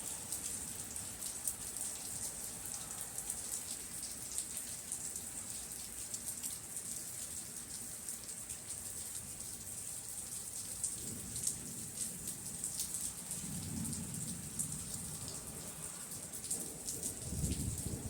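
Steady rain during a thunderstorm, with individual drops ticking sharply on a hard surface close by. Low rumbles of distant thunder swell in a few times over the second half, the strongest near the end.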